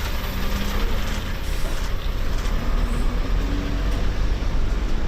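Steady low rumble of vehicle engines running.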